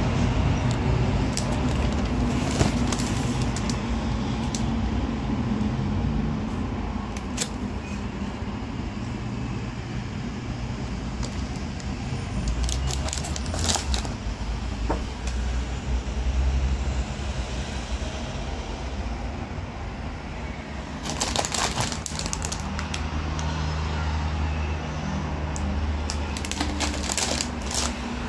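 Steady low rumble, with a few short bouts of crinkling and clicking as plastic noodle packets are handled close to the microphone.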